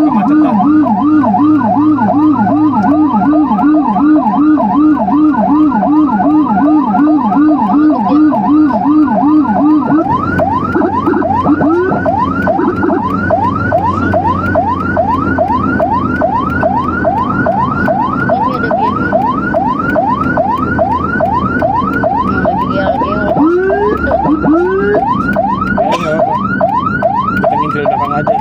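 Emergency vehicle sirens sounding together, an ambulance and its police escort: two fast warbling sirens at different pitches, and about ten seconds in the lower one stops while the higher one carries on as quick rising yelps, about three a second, over the rumble of the moving vehicle.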